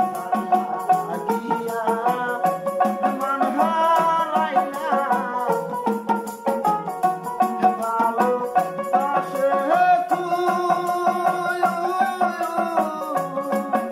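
Live Bengali folk song: a man singing over a plucked dotara-style lute and an electronic keyboard, with a small jingling hand drum and shaken percussion keeping a quick steady beat.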